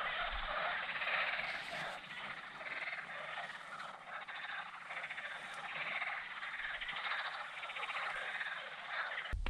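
Frogs croaking in a dense, continuous chorus of fast rattling calls, which stops abruptly near the end.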